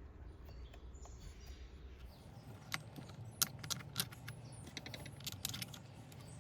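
Light clicks and clinks of small metal parts and tools being handled during chainsaw carburetor reassembly, with a cluster of sharp taps in the middle.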